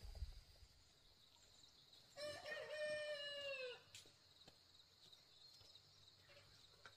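A rooster crows once, a single call of about a second and a half that drops in pitch at the end.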